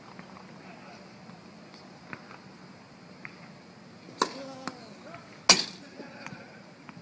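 Tennis practice serves: a racket strikes a tennis ball about four seconds in, and about a second and a half later comes a louder, sharper smack of the ball landing. Lighter ball taps come before and after.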